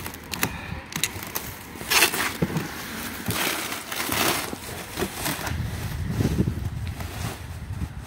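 Clear plastic stretch wrap crinkling and rustling as it is pulled off a pallet load by hand, in several irregular bursts.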